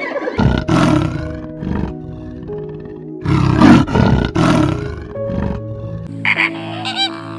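A big cat roaring twice, two long rough roars over steady background music.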